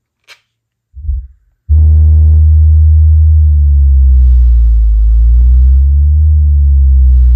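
Four Kicker L7 square 12-inch subwoofers in a quad box playing a bass test track, driven by a tiny SounDigital 400.4EVO amp bridged into 2 ohms. A brief low thump comes about a second in, then just before two seconds a very loud, deep, sustained bass tone starts and slowly wavers in pitch.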